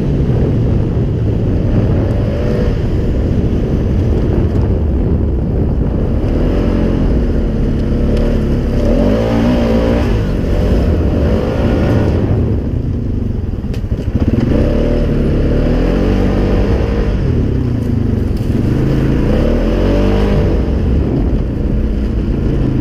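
Polaris Sportsman 570 ATV's single-cylinder engine running under way, revving up and easing off several times, through a CVT fitted with a new EPI clutch kit. The revs drop briefly about fourteen seconds in.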